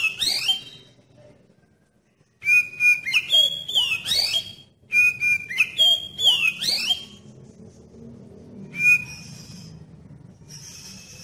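Oriental magpie-robin (kacer) singing: three bursts of loud whistled phrases with notes sliding up and down in the first seven seconds, then a single held whistle about nine seconds in and a short harsh note near the end.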